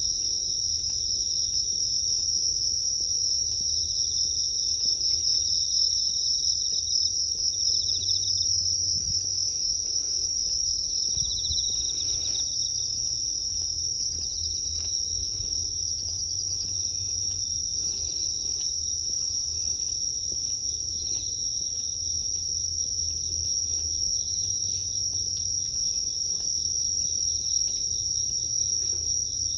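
Night chorus of crickets and other insects: a steady, high-pitched shrill trill with a second, pulsing chirp just below it, over a faint low hum.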